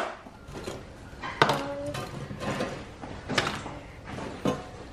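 A few sharp knocks and clicks of kitchen utensils and plastic lunchbox containers, the one about a second and a half in ringing briefly. Toward the end, metal tongs clicking against an air fryer basket while picking out chicken nuggets.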